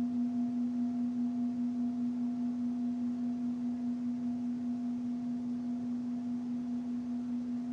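Singing bowl sustaining one steady low hum with a fainter higher overtone. Its loudness wavers in a beat of about three pulses a second.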